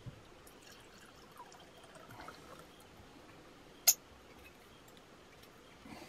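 Wine being poured quietly from a bottle into a glass, then a single sharp click a little before four seconds in.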